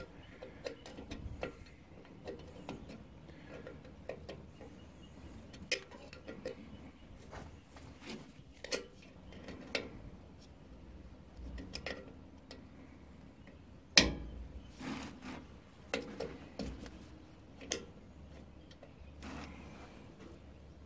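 Spanner on the brake pipe union of a newly fitted rear drum-brake wheel cylinder as the union is tightened: scattered light metallic clicks and taps, with one sharper knock about 14 seconds in.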